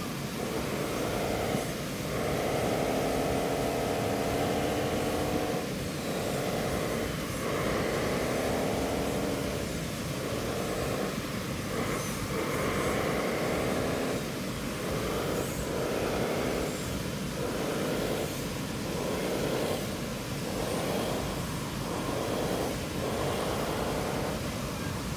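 Radio-controlled model wheel loader working in sand: its electric motors whine in stop-start bursts of one to a few seconds, the pitch rising and falling as it drives and moves its bucket.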